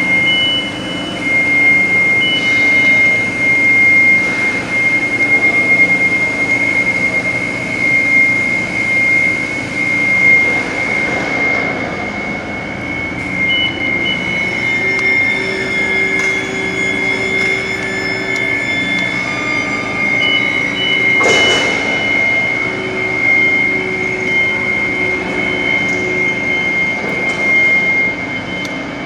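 Steady mechanical background noise with a constant high-pitched whine, and a single sharp knock about 21 seconds in.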